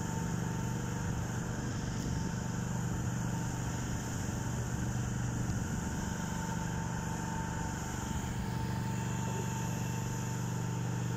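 Engine running steadily in a low drone, with a thin steady whine on top.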